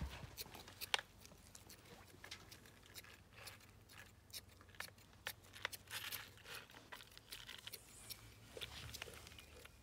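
Small scissors snipping the fur between a dog's paw pads: a string of faint, irregular clicks.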